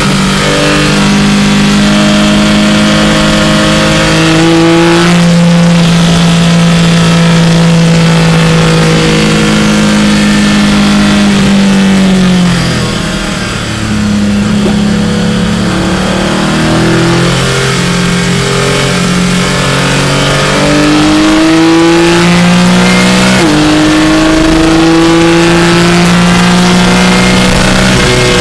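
Porsche 718 Clubsport's naturally aspirated flat-six heard from inside the car at full race pace. Engine pitch climbs with the revs and drops back at each gear change. It goes briefly quieter about halfway through as the car slows for a corner, then accelerates hard with quick upshifts toward the end.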